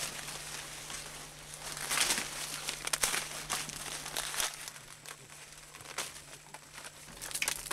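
Dry maize stalks and husks rustling and crackling in irregular bursts as ears of corn are picked by hand. A faint steady low hum runs underneath.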